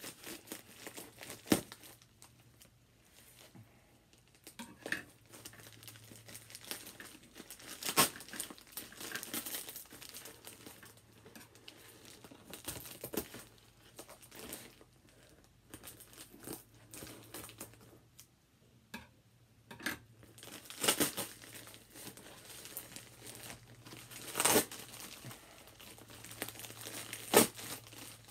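White plastic mailer bag being handled and pulled open: irregular crinkling and rustling of the plastic, with a few sharp, louder crackles.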